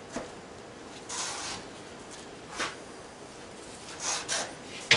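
A few short scrapes and rubs, about a second apart, as a Coosa composite stringer board is handled and slid against the hull and wooden frames while it is trial-fitted.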